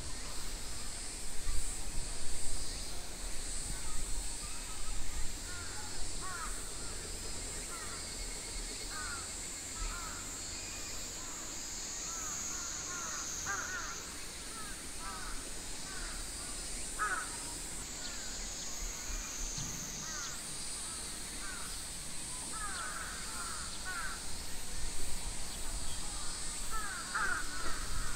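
Summer outdoor ambience: a steady high-pitched cicada drone that shifts pitch a couple of times, with short chirping bird calls scattered throughout and faint distant voices, which get louder near the end.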